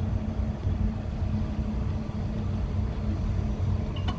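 Tohatsu outboard motor running steadily at idle, a low even hum, with a short click just before the end.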